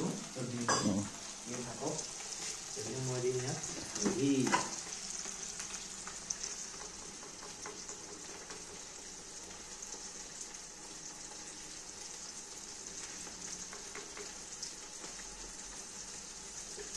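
Curry base of onions and tomatoes frying in oil in a steel kadai on a gas burner, giving a steady sizzle with a high hiss.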